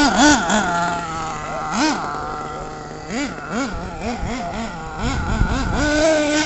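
Radio-controlled monster truck's engine revving in quick throttle blips, its pitch swooping up and falling back again and again, with stretches of steady lower running in between.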